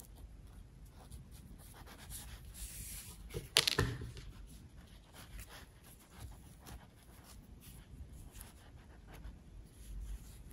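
Faint rustling and scraping of yarn as a sewing needle draws the loose ends through crocheted stitches, with small handling clicks and one sharper click about three and a half seconds in.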